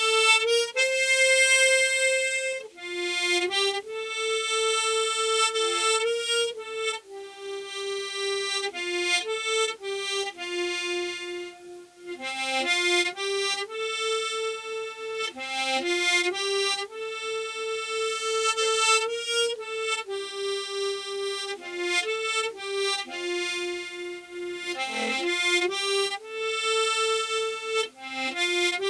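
Harmonica played solo without accompaniment: a slow melody of held notes lasting one to two seconds each, with a fainter lower note sounding beneath the tune.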